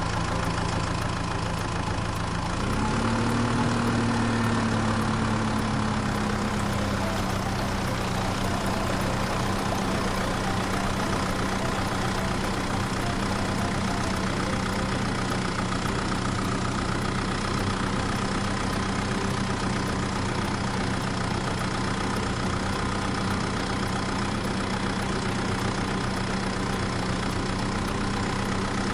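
A small engine running steadily. Its pitch rises about two and a half seconds in, then eases back and holds steady.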